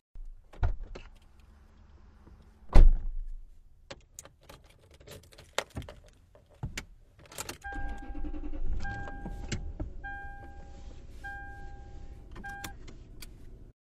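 A heeled footstep, then a car door shutting with a loud thump, then keys clicking and jangling in the ignition. The engine then starts and runs, while the car's warning chime beeps five times, about once a second.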